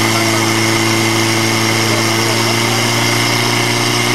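Portable fire pump's engine running steadily at one unchanging pitch, under load as it pumps water through the hoses to the nozzles.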